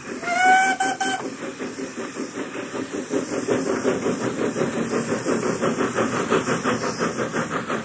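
Steam locomotive sound effect: a short steam whistle blast lasting about a second, followed by the engine chuffing in a quick, even rhythm.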